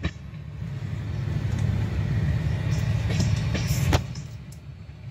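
The last tank car of a slow freight train rolling over the crossing, a steady low rumble of wheels on rail with a sharp clack at the start and another about four seconds in, after which the sound falls away. Heard from inside a car.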